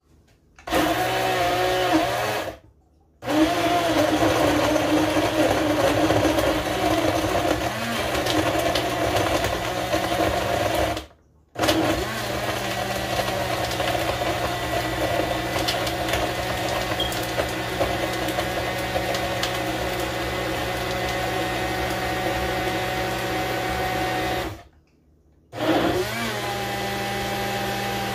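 Hamilton Beach Personal Creations blender running, crushing ice cubes and frozen strawberries with banana and milk into a smoothie. It runs in four stretches with three short stops, about 2.5, 11 and 25 seconds in; its pitch wavers in the early stretches, then holds steady.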